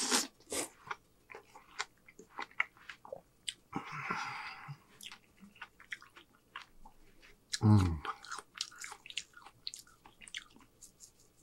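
Close-miked chewing of juicy watermelon: a run of wet smacks and crisp little clicks from the mouth. There is a second-long breathy slurp about four seconds in and a short hummed "mm" about eight seconds in.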